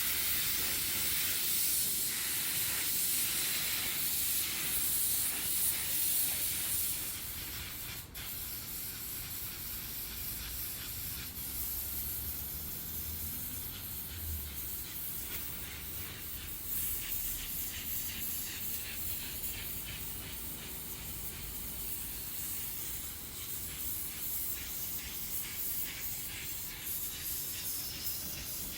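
Paint spray gun hissing as it sprays automotive paint onto a bumper. The hiss is louder for the first seven seconds, drops briefly about eight seconds in, then goes on softer and fluttering.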